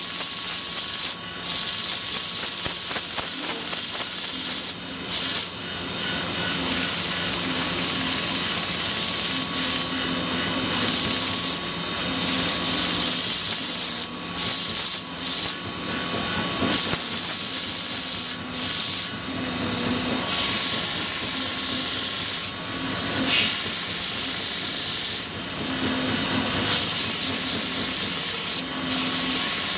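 Belt grinder running with a carbon steel knife blade held against the moving abrasive belt: a steady grinding hiss over a faint motor hum, breaking off briefly several times as the blade's contact with the belt changes.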